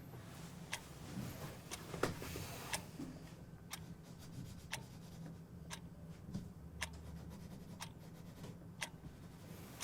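A clock ticking about once a second, each tick a sharp click, over a low steady hum.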